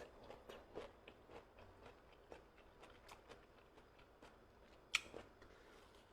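Quiet close-miked chewing: soft, scattered mouth clicks and smacks, with one sharper click about five seconds in.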